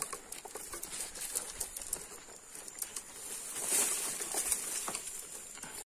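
Footsteps on a dry dirt path and grass and leaves rustling against the legs as someone walks through brush, with scattered light clicks and a swell of rustling about four seconds in.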